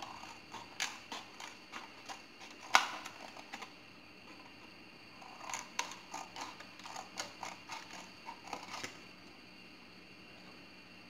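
Scissors snipping through a thin plastic bottle: a run of short snips and plastic crackles, the loudest a sharp snap about three seconds in, then after a short pause a second run of snips.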